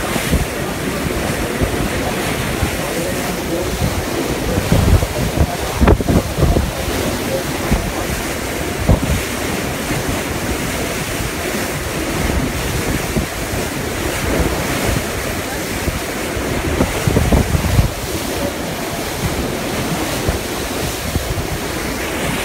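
Wind buffeting the microphone on a moving boat, over a steady rush of river water, with heavier low gusts about five, nine and seventeen seconds in.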